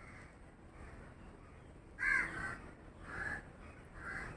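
Crow cawing three times, about two seconds in and again near the end, over a faint background.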